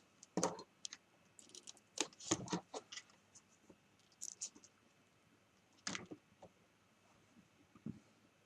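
Quiet, scattered clicks and rattles of cables and test leads being handled and plugged in, several in the first three seconds and a louder one about six seconds in.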